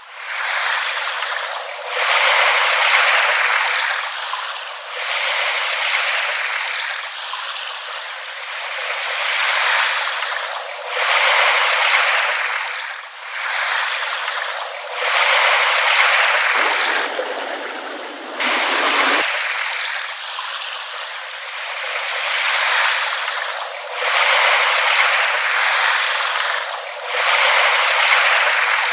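Small waves lapping on a shore, each gentle wash swelling and falling away every two to three seconds.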